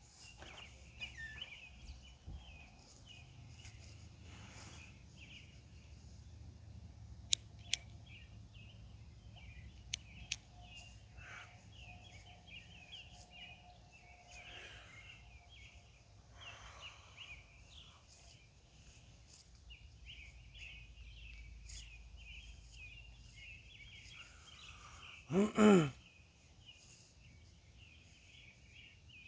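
Outdoor night ambience: a continuous chorus of high, irregular chirping over a low hum. A few sharp clicks sound around 7 and 10 seconds in, and about 25 seconds in a brief loud pitched call in two quick parts stands out above everything else.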